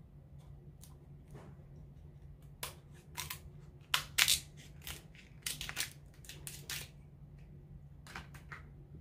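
Kitchen shears cutting through the shell of a boiled Alaskan king crab leg: a run of sharp cracks and crunches, loudest about four seconds in.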